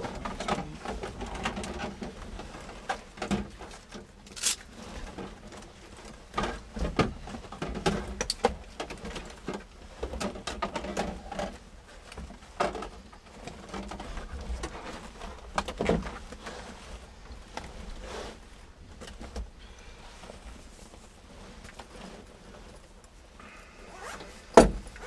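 Handling noise: irregular knocks, clicks and rustles of things being moved about, with one sharp, loud thump near the end.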